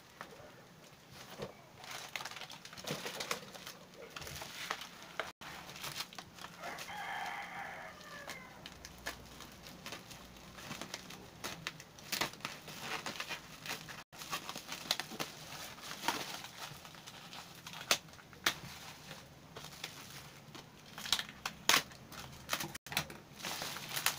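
Plastic wrapping crinkling and crackling as it is cut with a cutter knife and pulled off paper-wrapped packs of rice, in many short crackles. About seven seconds in, a rooster crows once, lasting about a second and a half.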